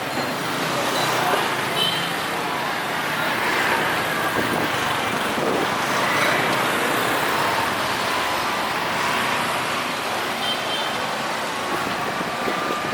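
Steady street traffic noise from passing road vehicles.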